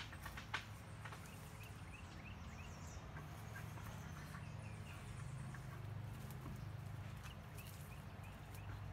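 Footsteps crunching through leaf litter and brush, with a few sharp snaps near the start, over faint short bird chirps and a steady low rumble.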